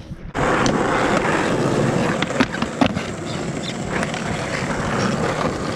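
Skateboard wheels rolling over rough asphalt: a steady gritty rolling noise that starts abruptly just after the start, with scattered short clicks and knocks.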